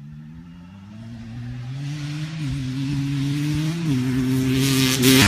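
A 250 cc dirt bike accelerating toward the listener, getting steadily louder. Its engine note climbs in pitch and drops back at two upshifts, about two and a half and four seconds in.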